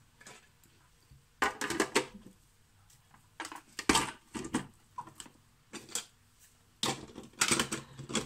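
Hard plastic parts of an electric mandoline slicer knocking and clicking as the blade insert, motor housing and feed chute are fitted into place, in a series of separate clatters with short pauses between.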